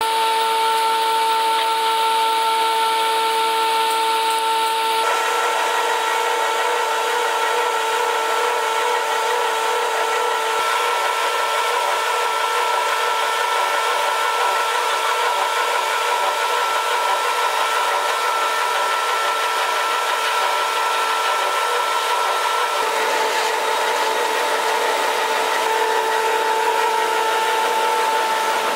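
Plastic recycling screw extruder running steadily: a continuous machine whine from its drive over a wide hiss, the whine shifting slightly about five seconds in and again near the end.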